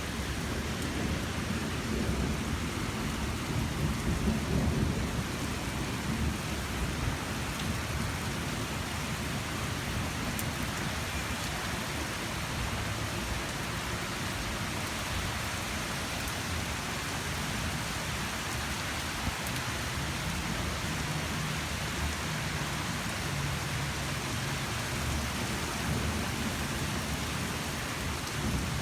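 Steady rain falling, an even hiss throughout, with a low rumble that swells and is loudest about four to five seconds in.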